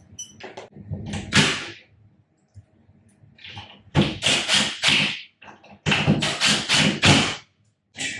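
Screws being driven through mirror clips into drywall anchors: a short burst, then two longer bursts of rough grinding noise about two seconds apart.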